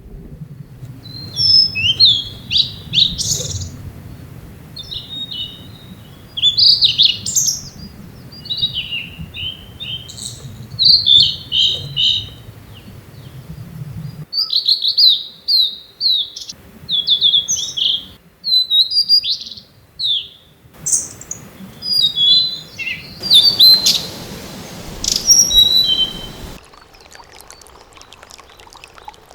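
Male blue-and-white flycatcher singing: repeated phrases of clear, high whistles running into quick warbled notes, each phrase about one to two seconds long with short pauses between. A low rumble sits under the song in the first half.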